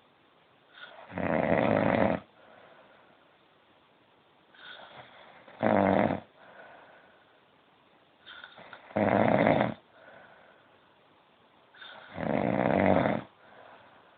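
A sleeping man snoring: four loud, rasping snores about every three and a half seconds, with quieter breathing between them.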